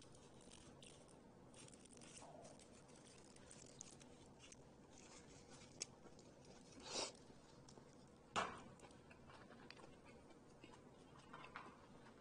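Near silence with the faint sounds of a person eating with chopsticks from a foil tray: a few soft rustles and clicks, a short rush of noise about seven seconds in, and one sharper knock about eight seconds in.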